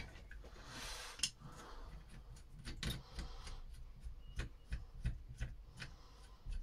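Faint, scattered small metal clicks and light scraping: a screwdriver and spanner working the next nut loose on a solenoid being taken apart for scrap.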